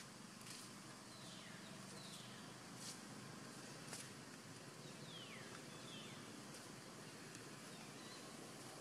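Faint forest ambience with a steady hiss. Several short whistled animal calls fall in pitch, at about one, two, five and six seconds in, with a few light clicks between them.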